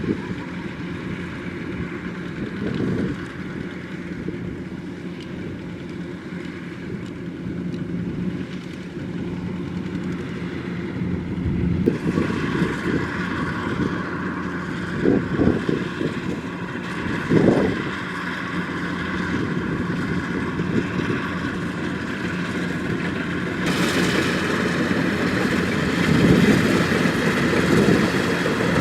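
Kubota DC-105X rice combine harvester running steadily, its engine and harvesting machinery making a continuous mechanical drone with a steady hum. The sound changes abruptly twice, about twelve seconds in and again near twenty-four seconds, turning brighter each time.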